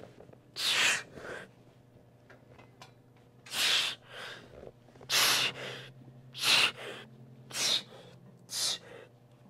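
A man's hard, noisy breaths with the effort of a set of chest-press reps taken to failure, about six of them, coming faster toward the end. A steady low hum runs underneath.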